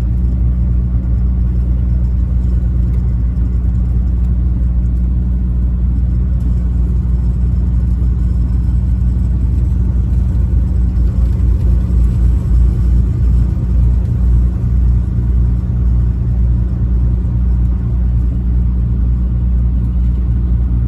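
Truck engine and road noise while driving: a steady low drone.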